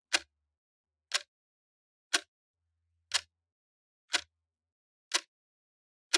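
Clock ticking steadily once a second: sharp, even ticks with silence between them.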